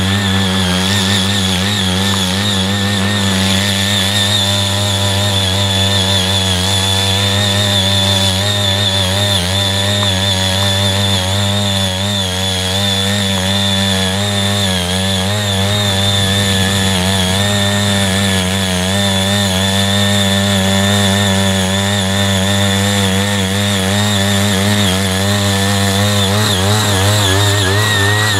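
Small engine of a CY80 walk-behind power tiller running steadily while its rotary tines churn through dry clods of soil. The pitch wavers slightly as the load changes.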